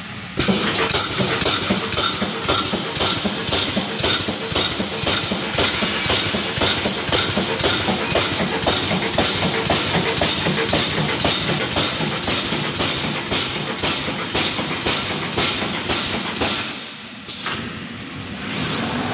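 Wire mesh welding machine running, its welding heads cycling in a fast, regular clanking rhythm of sharp metallic strokes, two to three a second. The strokes ease off near the end.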